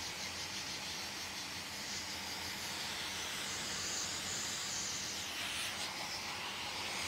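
Pet blow dryer blowing a steady stream of air into a drying cage over a freshly bathed cat's wet fur: an even, steady hiss.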